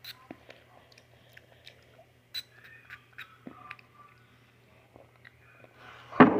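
Faint scattered clicks and wet mouth sounds from a small pump-spray bottle of sour candy spray being pressed into the open mouth, followed by lip smacking as the spray is tasted.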